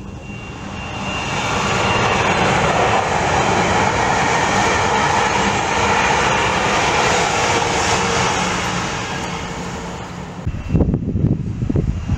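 Passenger train passing along the track: a steady rush that builds, holds for several seconds and then fades away. In the last couple of seconds wind buffets the microphone in low, uneven gusts.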